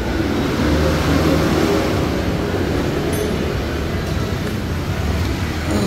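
Steady mechanical rumble with a hiss over it, like machinery running in the background, holding level with no clear start or stop.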